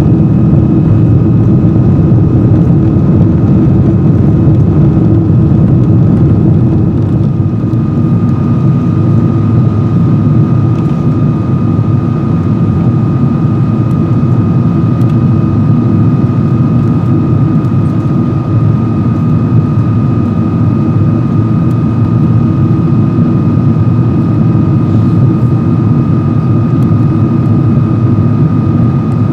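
Boeing 777-200 cabin noise during the climb after take-off: a steady, loud rumble of jet engines and airflow heard from inside the cabin, with a thin steady whine that grows stronger about eight seconds in.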